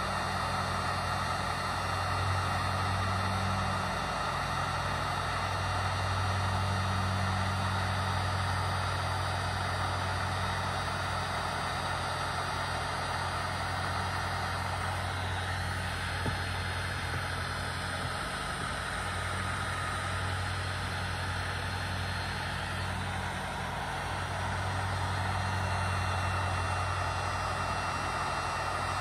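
Handheld electric heat gun running steadily, its fan motor humming and blowing hot air, the low hum growing louder and softer now and then.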